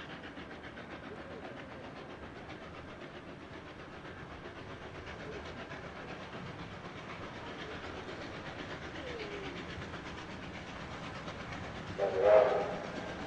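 Steam train running with a steady rumble, then one short, loud whistle blast near the end.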